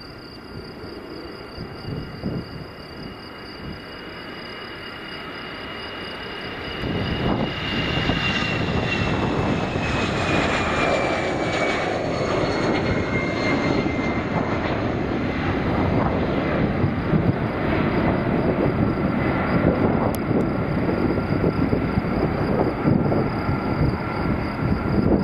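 Airbus A319-111's twin CFM56-5B turbofans at takeoff thrust. The jet noise builds through the takeoff roll, jumps louder about seven seconds in, and stays loud as the airliner climbs away. A high fan whine slides down in pitch as the aircraft passes.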